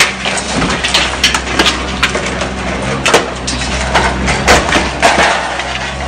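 Mini excavator's bucket smashing into a glass shop entrance: repeated crashes, cracking and crunching of breaking glass and door frame, loudest about three and four and a half seconds in, over the steady running of the excavator's engine.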